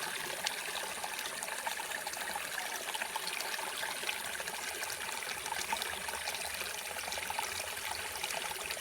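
Flowing water trickling and babbling steadily, with many small splashes.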